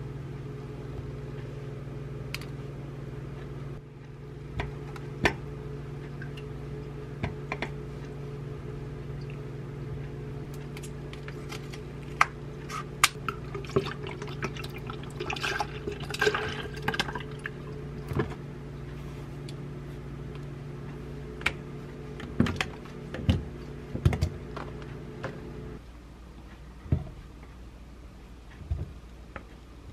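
Black bean soy milk poured from its pack into a blender jar, a few seconds of filling about halfway through. Light clicks and knocks of containers and utensils on the counter come and go, over a steady low hum that stops shortly before the end.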